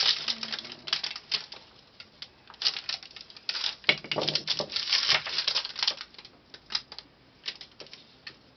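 Handling noise on a work surface: a worn paper pattern rustling, with irregular small hard clicks and taps as small objects are picked up and set down. The clicks come in clusters and thin out near the end.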